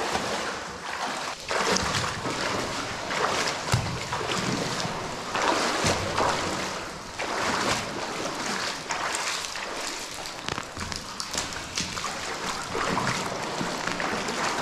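People wading through water in waders, their legs sloshing and splashing with each stride in an uneven rhythm.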